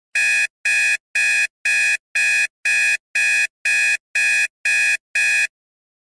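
Digital alarm clock buzzer going off: eleven short, harsh beeps, about two a second.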